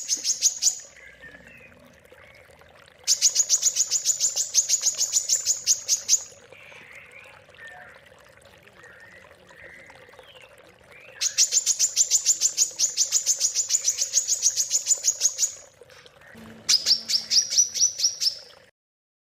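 Songbird singing a rapid, high-pitched staccato trill of about ten notes a second, in three bursts of a few seconds each, with softer, scattered chirps in between. The last burst rises slightly in pitch, and the song cuts off abruptly near the end. It is the kind of rapid 'tembakan' burst that songbird-contest judges look for.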